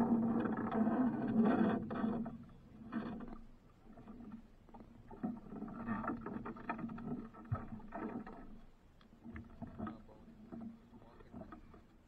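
Fishing handline being hauled in and wound onto a plastic hand reel: rustling and scattered light clicks that grow quieter toward the end. A steady low hum runs under it at the start and again midway.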